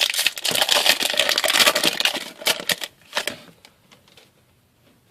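Hockey trading cards being handled: a dense run of crackling clicks of cards and pack wrapper for about two seconds, then a few separate flicks, dying away.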